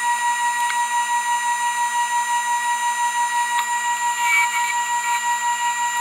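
Wood lathe running with a steady, high-pitched electrical whine that pulses gently. A few faint clicks and a brief scratchy patch come about four seconds in.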